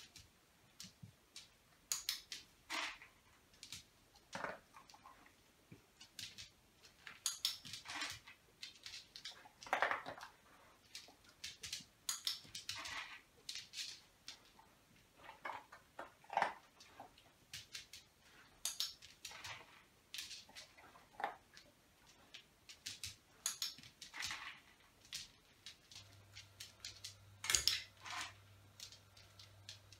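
Scattered light clicks, taps and clinks at irregular spacing, from a puppy moving about on a tiled floor and nosing treats in a small bowl. A low steady hum comes in near the end.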